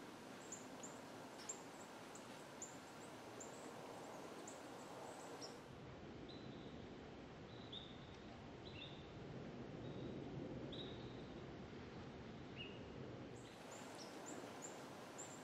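Small birds chirping faintly over steady background noise: short, very high chirps come several times a second for the first five seconds or so, then sparser, lower chirps, then the very high chirps return near the end.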